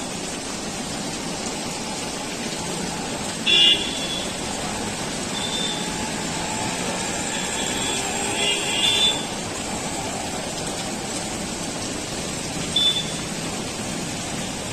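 Steady rain falling, with four short high-pitched beeps over it, the loudest about a quarter of the way in and just past the middle.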